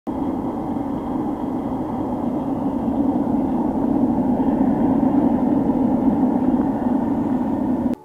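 DIY sheet-metal furnace running hot with a brushless multicopter motor as its blower: a steady rush of forced air and flame with a faint high whine. It grows slightly louder about halfway through.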